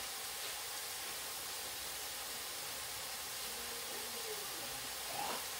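Ground beef sizzling steadily as it browns in a pot, an even hiss.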